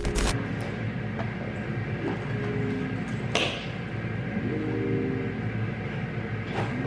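A steady low rumble and hiss with a hum under it, with a few faint, muffled musical notes coming through.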